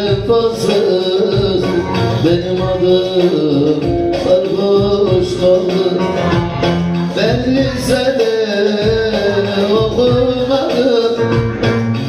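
Live Turkish folk song: electric bağlama playing a gliding melody over a steady percussion backing, in an instrumental passage between sung lines.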